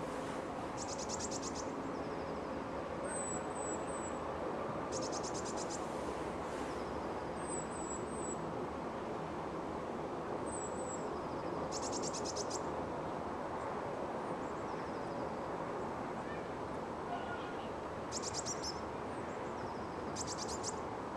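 Small birds calling every few seconds, with short rapid high trills and thin high chirps, over a steady low hum from the city.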